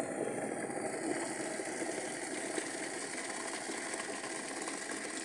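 Freshly boiled water poured from an electric kettle into a glass mug, a steady splashing stream.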